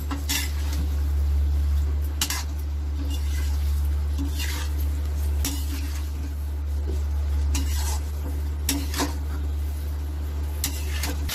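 Metal spatula stirring and tossing fried potato fingers in sauce in a steel kadai, scraping and clinking against the pan about every second or two. A steady low hum runs underneath.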